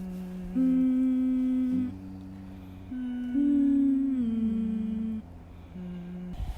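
A person humming a short tune of about eight steady, held notes that step up and down in pitch.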